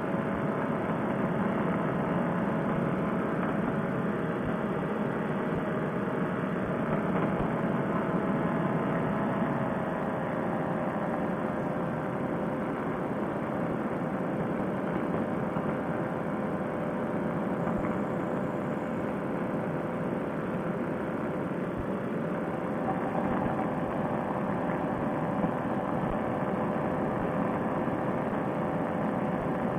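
Fresh Breeze Monster two-stroke paramotor engine and propeller running steadily at cruise power in flight, a continuous drone whose pitch sags slightly about ten seconds in.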